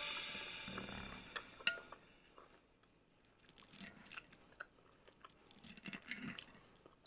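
Faint close-up eating sounds: a person chewing, with small clicks of a metal spoon against a plate, scattered and strongest in the second half. Background music fades out in the first second.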